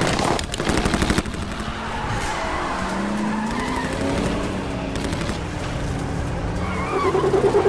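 A rapid burst of automatic gunfire in the first second, then Toyota Land Cruiser SUV engines revving hard and tyres skidding on dirt during a high-speed chase, with a short tyre squeal near the end.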